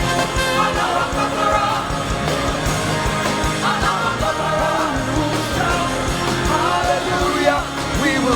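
Live gospel praise music: a band with a drum kit plays an upbeat chorus while voices sing along.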